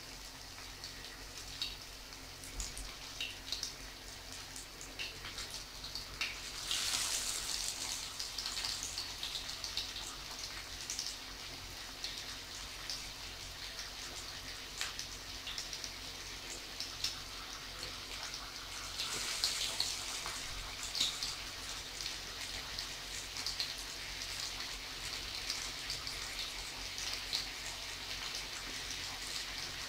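Croquettes shallow-frying in hot oil in a frying pan: a steady sizzle full of small crackles. It swells louder about 7 seconds in and again about 19 seconds in, as fresh croquettes go into the oil.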